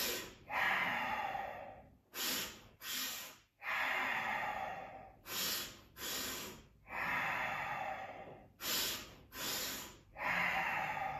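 A man breathing forcefully through his nose in the cobra breathing exercise: two short, sharp sniffs in quick succession, then a longer, softer exhale. The cycle repeats about every three seconds, three double inhales in all.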